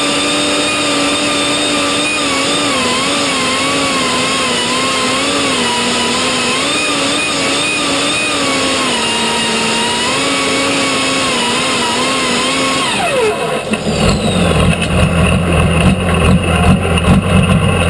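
Pulling tractor's diesel engine running flat out under load, its steady note wavering slightly. About thirteen seconds in, the revs drop sharply as the throttle comes off at the end of the pull, leaving a choppy low rumble.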